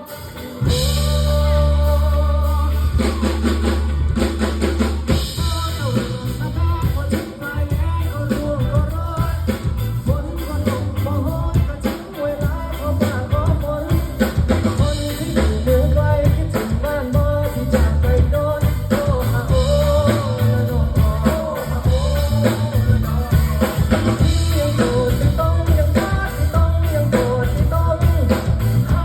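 Band music: a pop-rock song with a steady drum beat and heavy bass, coming in at full strength about a second in, with a melody line over it.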